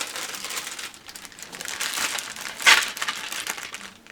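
Plastic packaging crinkling as model kit parts are handled, with one short, louder crackle about two and a half seconds in.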